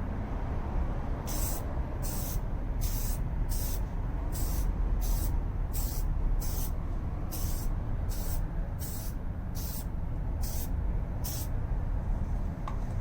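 Aerosol can of Meguiar's Keep Clear headlight coating spraying a clear coat onto a headlight lens in short passes. There are about fifteen hisses, a little under a second apart, starting about a second in and stopping near the end, over a steady low rumble.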